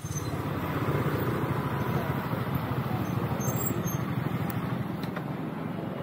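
Motorcycle engine running at low speed as the bike rolls along slowly, a steady, fast-pulsing low rumble.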